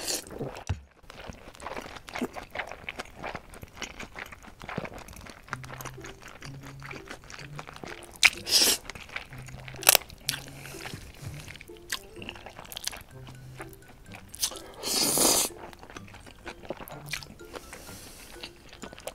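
Close-miked slurping of spicy buckwheat noodles (makguksu), with wet chewing and crunching between the slurps. The loudest slurps come about eight and a half, ten and fifteen seconds in.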